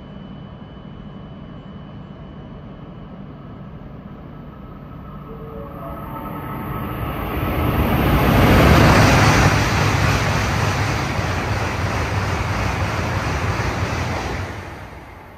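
A Tohoku Shinkansen bullet train (a Tsubasa coupled to a Yamabiko) passing through the station at high speed without stopping. Its rushing noise swells over a few seconds, peaks about halfway through, holds, then fades near the end.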